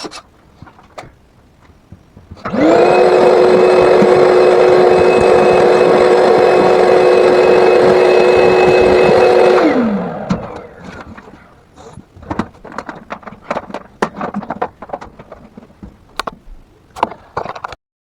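Vacuum cleaner switched on, spinning up fast to a steady motor whine with a rush of air, running about seven seconds, then switched off and winding down in falling pitch. Scattered knocks and clatter follow.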